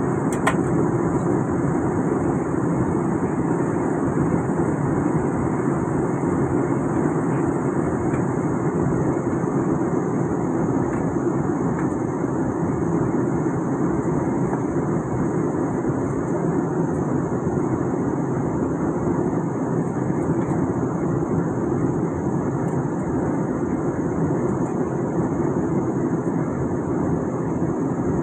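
Steady cabin noise of a passenger jet airliner on descent: the even rush of the engines and air streaming past the fuselage, heard from inside the cabin, with a thin constant hiss above it.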